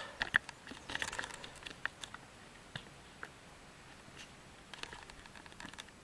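Faint handling noise: scattered small clicks and rustles, busiest in the first couple of seconds and again near the end.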